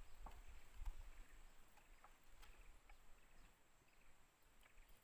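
Near silence: faint outdoor ambience with a few light ticks and a low rumble in the first second.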